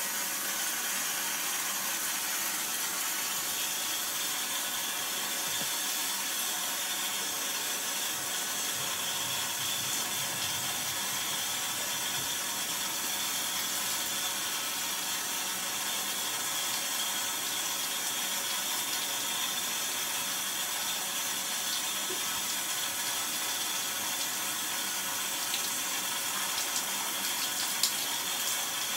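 Shower running steadily, the spray hissing and splashing onto soaked clothes and the tiled stall, with a short sharp click near the end.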